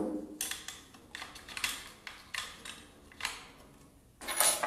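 Light metal clicks and rattles, about ten irregular strikes with a louder rattle near the end, from tightening the blade bolt of a Bosch GKS 140 circular saw with its wrench while the spindle lock is held.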